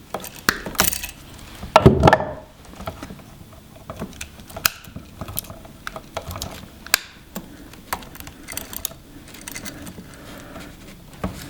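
Wire cutters and strippers at work on a single electrical wire at close range: a series of sharp clicks and snaps, the loudest about two seconds in, with lighter ticks of tool and wire handling after it, as the wire is trimmed shorter.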